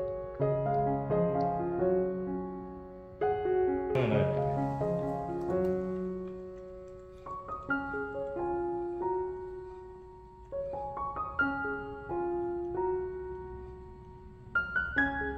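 Background piano music playing a melody of held notes, with a brief downward-sliding sound about four seconds in.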